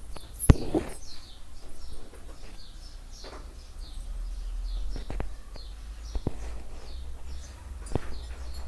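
Small birds chirping over and over in short falling notes, with a few sharp clicks or knocks, the loudest about half a second in, over a low steady hum.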